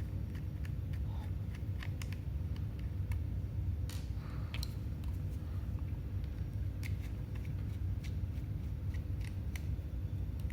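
Scattered small clicks and ticks of a screwdriver working out the small screws that hold a laptop hard disk in its metal caddy, over a steady low hum.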